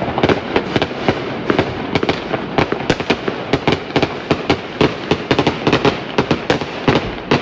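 Many fireworks going off at once: a dense, unbroken crackle of bangs and pops, several every second.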